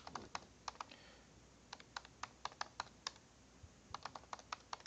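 Faint typing on a computer keyboard: short runs of separate key clicks with brief pauses between them, as a password is typed and then retyped.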